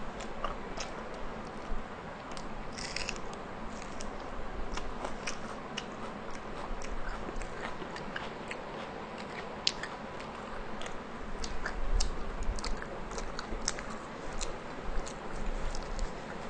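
Close-miked chewing of rumali roti with mutton curry: many small, irregular mouth clicks and smacks as the food is bitten and chewed.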